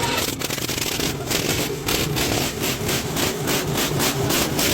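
A large engine running after its overhaul, loud and dense, with an even pulsing beat about four times a second; the sound starts suddenly.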